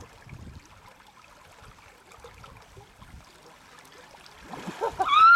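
Faint flowing river water with a few low dull bumps; near the end a voice calls out, rising in pitch.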